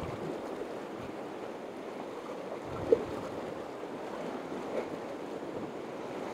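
Sea waves washing and surging against the rocks of the shoreline, a steady rushing wash, with one brief sharp tick about three seconds in.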